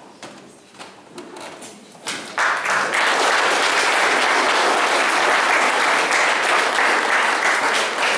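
Audience applauding: a few scattered claps at first, then full applause breaks out about two seconds in and holds steady.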